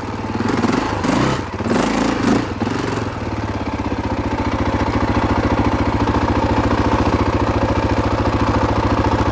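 KTM 530 EXC dirt bike's single-cylinder four-stroke engine revving unevenly for the first three seconds, with some clatter, then settling into a steady idle with fast, even firing pulses.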